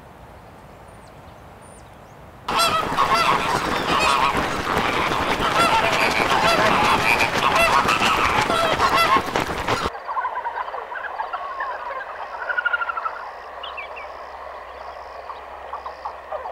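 A large flock of lesser flamingos honking in a dense chorus, with the clatter of wings flapping and feet splashing as they run across the water to take off. The chorus starts suddenly a couple of seconds in and cuts off abruptly after about seven seconds, leaving quieter, scattered bird calls over a low hum.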